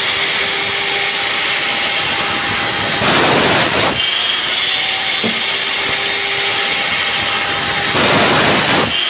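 Electric mitre saw running with a steady whine, its blade cutting aluminium angle. It gets louder and harsher twice, about three seconds in and near the end, as the blade goes through the metal.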